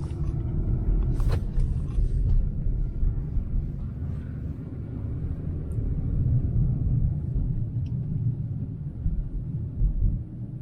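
Car driving on a snow-covered road, heard from inside the cabin: a steady low rumble of engine and tyres, with a couple of brief knocks about a second in.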